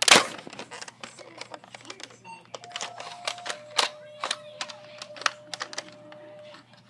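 Plastic clicks and knocks of a Nerf blaster being handled and worked on to clear a jammed dart, with a loud knock at the very start. A faint steady tone runs underneath through the second half.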